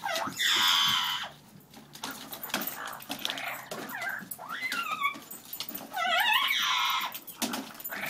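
A poodle and a parrot squabbling: dog growls and yips mixed with harsh, wavering screeches, in several loud bursts with short lulls between them.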